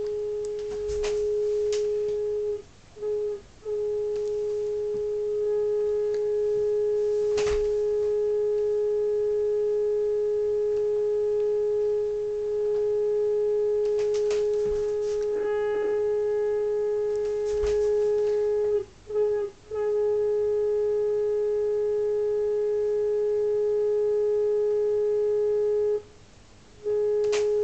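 Steady single-pitch test tone from the Uniden 2020 transceiver's speaker: the signal generator's signal being received while the preamp is peaked on the 21 MHz band. The tone cuts out briefly twice about three seconds in, twice more past the middle and for about a second near the end, and grows slightly buzzier from about five seconds on; a few faint clicks sound over it.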